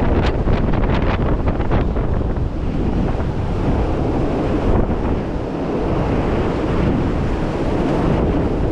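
Storm-force wind battering the microphone: a loud, continuous rumbling buffet that swells and eases with the gusts, with crackling in the first couple of seconds.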